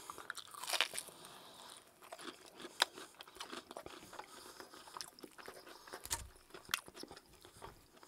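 Close-miked chewing of double-breaded extra crispy fried chicken, the crisp coating crunching in the mouth. The crackles are irregular, with a few louder cracks about a second in, near three seconds and again past six seconds.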